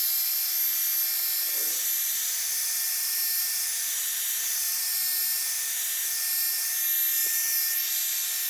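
Handheld hair dryer switching on and blowing steadily: an even rush of air with a thin, steady high whine from its motor.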